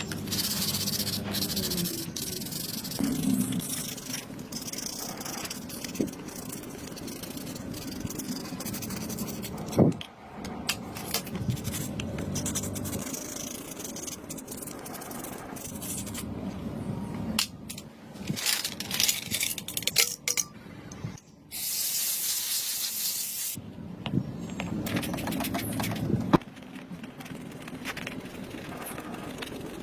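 Hand-work sounds from cleaning and repairing AirPods Pro earbuds: scraping and rubbing with small clicks and knocks, and a hiss of spray lasting about two seconds about three quarters of the way through.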